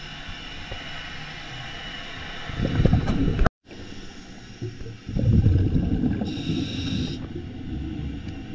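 Underwater sound of a diver breathing: exhaled bubbles rumble in two surges, about three seconds in and again from about five seconds in, with a short hiss near seven seconds. Underneath is a steady hum with high steady tones, and the sound cuts out for a moment just before four seconds.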